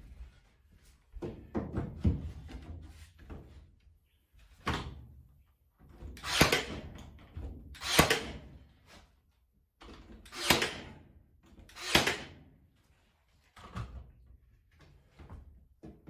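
Cordless nail gun firing nails through hardwood panelling boards into the wall framing: four loud sharp shots in the middle, a second or two apart, with softer knocks from handling the boards around them.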